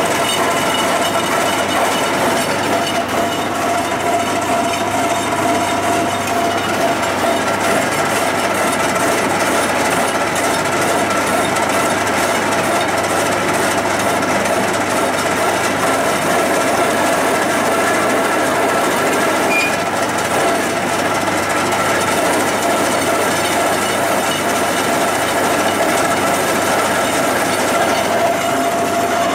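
Metal lathe spinning a Ford CD4E automatic transmission's torque converter while the lathe tool cuts its steel shell open. The sound is a steady, loud machining noise with several held ringing tones and no break.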